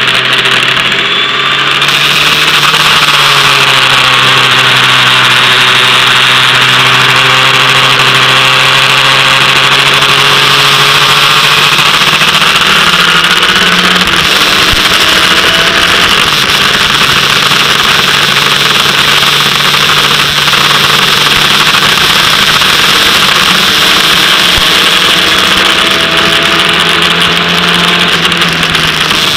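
Formula Ford racing car's engine running hard at speed, heard from on board, its pitch drifting slowly up and down with the throttle, over a heavy hiss of wind and spray from the wet track.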